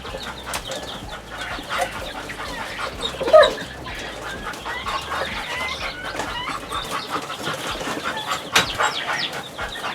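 A brooder of newly hatched chicks and guinea keets peeping busily in many short, high chirps. One louder, lower call sounds about a third of the way in, and there is a sharp knock near the end.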